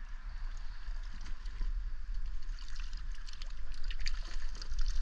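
Shallow river water splashing and trickling around gloved hands working among the stones, with many small scattered ticks and clicks.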